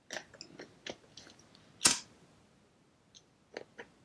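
Small handheld lighter clicking as it is struck and worked against the seam to melt the cut end of the waxed polyester thread, with one loud sharp click about two seconds in, amid light ticks of handling.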